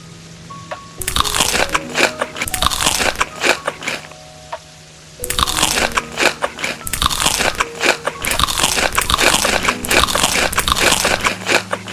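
Crunchy food being bitten and chewed in two long stretches of dense crackling crunches, the second longer, over soft background music with gentle mallet notes.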